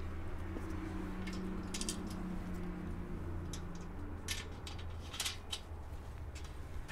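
Faint, scattered clicks and taps of metal hardware and bench parts being handled during assembly, over a low steady hum.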